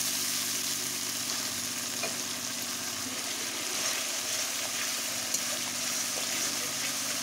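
Spice paste of ginger, garlic, green chilli, turmeric, chilli and cumin powders sizzling in hot oil in a kadai as it is fried down and stirred with a metal spatula: a steady hiss with a few light scrapes, over a low steady hum. This is the stage where the masala fries until the oil separates.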